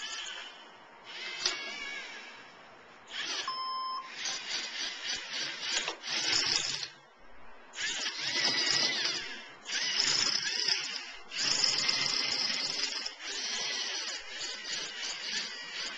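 LEGO Mindstorms NXT robot's servo motors and gears whining in repeated bursts as the robot drives and moves its attachments, starting and stopping abruptly with the pitch sliding up and down. There is a short beep about three and a half seconds in.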